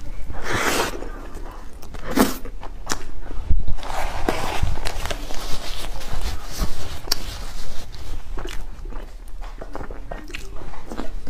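Eating sounds close to the microphone: bites into soft, chocolate-sauce-soaked bread and chewing, with irregular sticky mouth clicks. About halfway through, a tissue rustles as it is wiped across the mouth.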